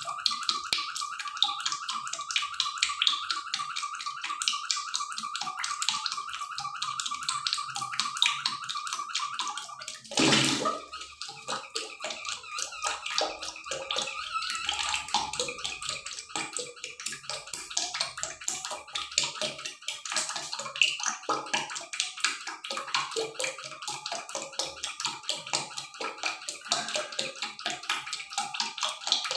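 Duck wings simmering in coconut milk (kakang gata) in a pan, the milk bubbling and popping steadily. A single brief knock comes about ten seconds in.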